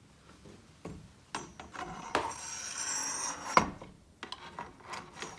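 Bicycle fork steerer tube being slid up through the headset bearings: metal scraping and rubbing, with several clicks and knocks, the loudest knock about three and a half seconds in.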